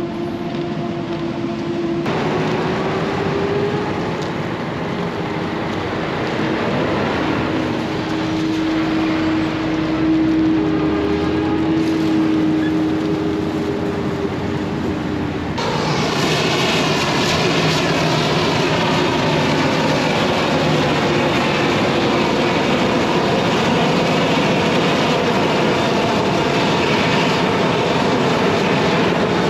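Heavy diesel machinery at work in a maize harvest, with a steady engine drone throughout. First a big silage truck drives close by, its engine note holding steady and bending slightly in pitch. About halfway through the sound switches suddenly to the denser, brighter drone of an old Krone Big X 1100 forage harvester chopping maize, with several steady tones over it.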